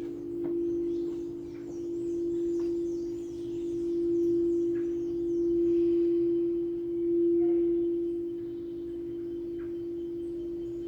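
A singing bowl holding one sustained ringing tone that swells and eases about every second and a half, as if the rim is being played continuously.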